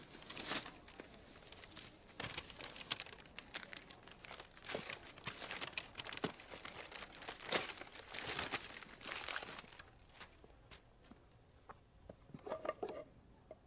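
Wrapping paper being torn and crumpled by hand as a gift is unwrapped: a run of irregular crackly rustles that thin out after about ten seconds.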